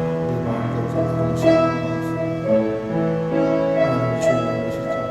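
Keyboard playing slow, held chords as soft background music.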